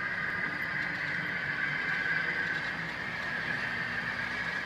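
HO scale model diesel locomotives running on the layout track, making a steady high whine over a low running rumble.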